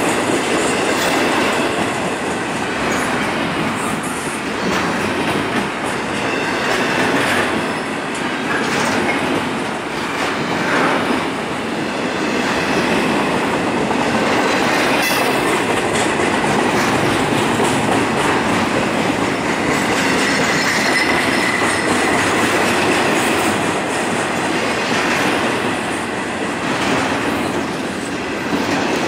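Freight train's double-stack container well cars rolling past close by: a steady rumble of steel wheels on rail with rhythmic clickety-clack. A faint high wheel squeal appears around twenty seconds in.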